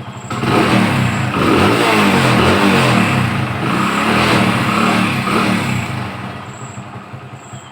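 Hero Honda Splendor+ single-cylinder four-stroke engine revved repeatedly with the throttle, its pitch rising and falling, then settling back to idle near the end.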